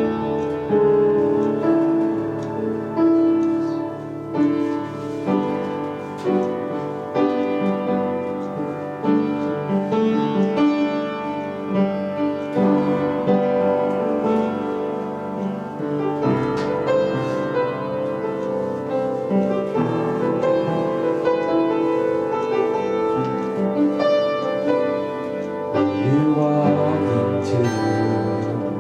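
Worship band playing an instrumental introduction led by piano, with sustained chords and a steady flow of notes.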